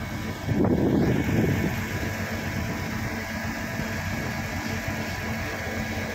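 Truck engine running steadily to drive a truck-mounted hydraulic crane, with a louder swell of noise in the first second or two.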